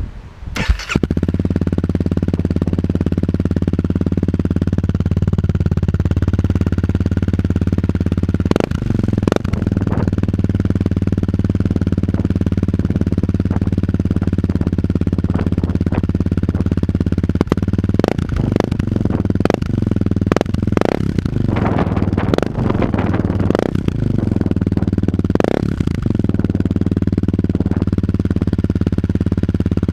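A Honda CRF250L's single-cylinder four-stroke engine starts about a second in and idles steadily through its exhaust. Several short sharp bursts and changes in the engine note come between about 8 and 26 seconds.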